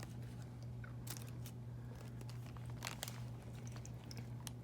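Plastic shipping bags crinkling and crackling as they are handled, a scatter of short sharp crackles over a steady low hum.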